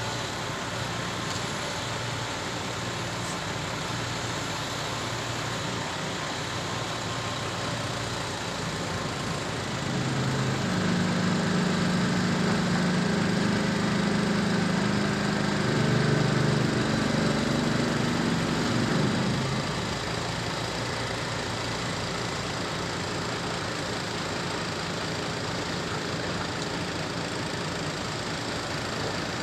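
Heavy diesel earthmoving engine running steadily, working harder and louder for about nine seconds in the middle before settling back.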